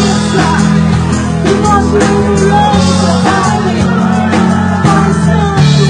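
Live worship music: a woman singing into a microphone over sustained chords and a steady beat, with the chords changing every second or two.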